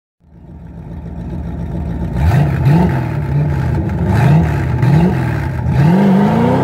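A car's engine fades in idling, then is revved up and down several times from about two seconds in, with the revs climbing again near the end.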